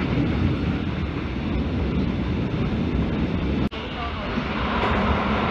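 Passenger train running at speed, heard from inside the carriage: a steady rumble of wheels on the rails with wind noise. The sound cuts out for an instant about three and a half seconds in.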